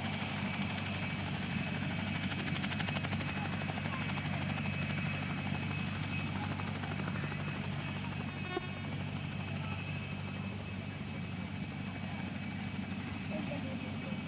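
Mil Mi-2 helicopter hovering low close by, its twin turboshaft engines giving a steady high whine over the low rotor noise. It eases off slightly toward the end.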